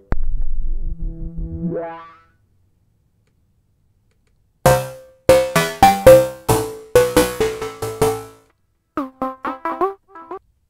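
Electronic synth sounds from the Electric Vice EDM expansion pack for Native Instruments Maschine, played without backing. A low note sweeps upward, then after a pause comes a quick run of about ten short stab notes, and near the end a few short notes that drop in pitch.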